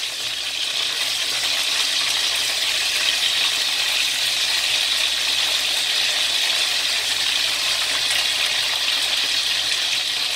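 Chicken wings sizzling steadily as they shallow-fry in oil in a wok, while the pieces are turned over with chopsticks.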